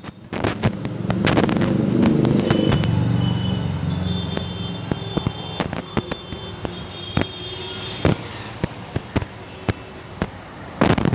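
Firecrackers going off repeatedly, a scatter of sharp bangs and cracks. A low engine-like rumble swells about a second in and fades away over several seconds.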